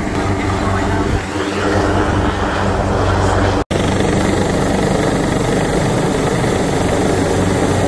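Coastguard rescue helicopter hovering close by: loud, steady rotor and engine noise, with a split-second dropout about halfway through.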